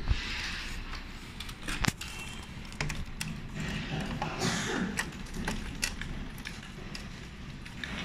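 Scattered clicks and knocks with rustling as an HDMI cable plug is handled and pushed into the back of a computer monitor.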